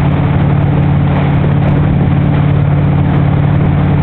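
Motorboat engine running steadily under way, its low hum over the rush of the churning wake.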